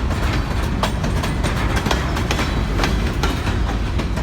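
Freight cars of a grain train rolling past close by: a steady low rumble with the wheels clicking irregularly over the rail joints.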